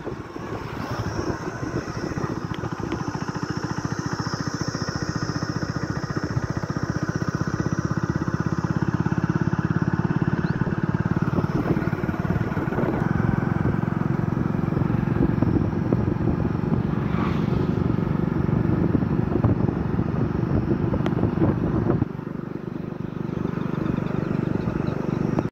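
Motorcycle running at road speed, heard from the rider's seat. It grows louder over the first several seconds, then drops off suddenly near the end before building again.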